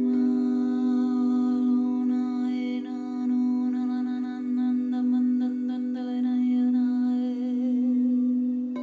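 A voice hums a long held note in unison with a crystal singing bowl, as sound-healing toning. The note is steady, with the hum's overtones shifting above it, and it dips briefly for a breath about three seconds in.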